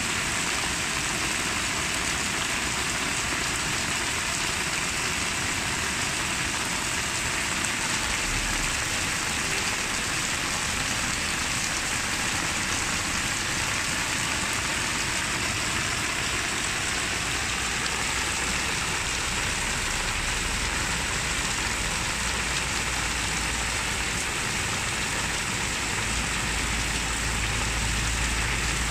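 Heavy downpour falling on a flooded lawn, the drops splashing into standing water over the grass in a steady, even hiss.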